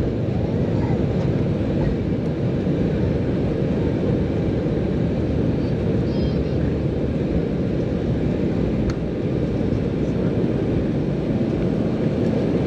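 Steady engine and airflow noise inside the cabin of an Embraer 195 twin-turbofan airliner, an even low rumble and hiss with no break.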